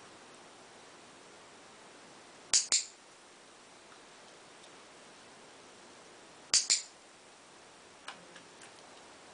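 Dog-training clicker clicked twice, about four seconds apart, each a sharp double click as it is pressed and released. Each click marks the dog holding its down through a distraction, and a treat follows.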